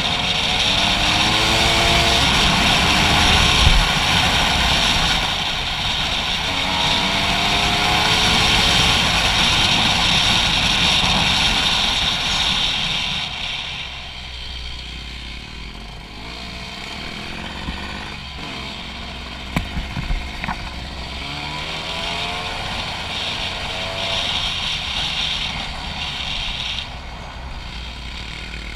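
Dirt bike engine accelerating hard, its pitch climbing again and again as it runs up through the gears, with wind rushing over the microphone. About halfway through it drops to lower revs as the bike slows, with a few sharp clicks.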